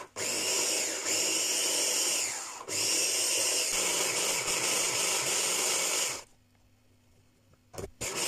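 Hand blender's chopper attachment running as it minces fresh dill. The motor runs for about two and a half seconds, winds down briefly and picks up again, runs about three and a half seconds more, and stops about six seconds in. A couple of light knocks come near the end.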